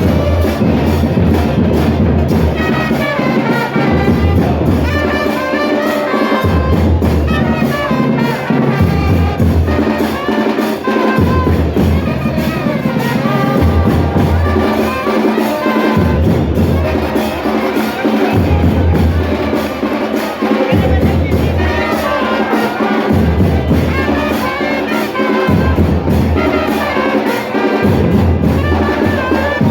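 Music with trumpets and drums over a bass line that changes note every second or two.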